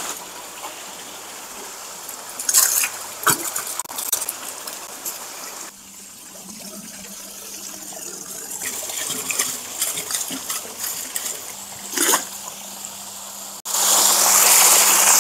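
Scattered knocks and clatter over a faint steady hum, then near the end water suddenly gushes loudly from a pipe into a concrete fish pond.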